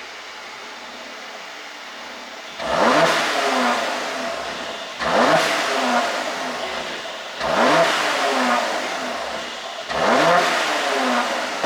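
Mercedes-AMG E43's twin-turbo V6 exhaust idling, then blipped four times about every two and a half seconds. Each rev rises sharply and falls away with a crackling, popping tail from an ECU tune made for exhaust pops.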